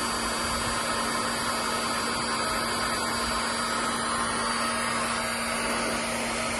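Heat gun blowing steadily with a constant hum and whoosh, heating an aluminium gear lever so it expands to take a press-fit extension.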